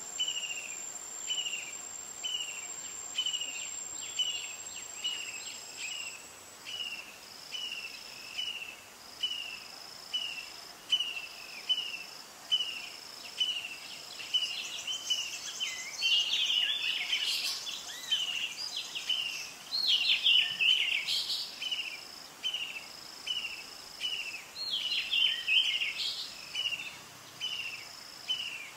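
Outdoor insect and bird chorus. A short chirp repeats about every two-thirds of a second, a thin high whine stops a few seconds in, and louder bird calls join in through the middle and again near the end.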